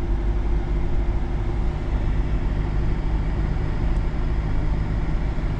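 Pickup truck running and rolling along a snowy road, heard from inside the cab: a steady low engine hum and road rumble.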